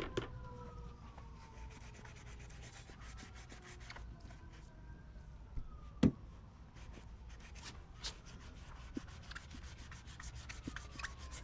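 Wet sandpaper, 400 grit, rubbed by hand in quick repeated strokes over a plastic ATV body panel. A siren wails faintly behind it, and there is one sharp knock about six seconds in.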